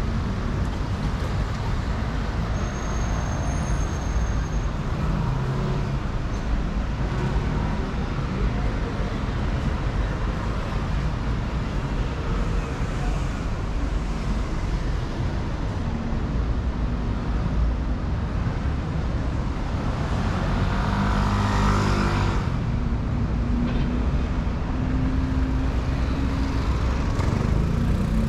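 Steady city street traffic: cars and buses running past. One vehicle passes louder about twenty seconds in, and an engine's pitch rises slowly near the end.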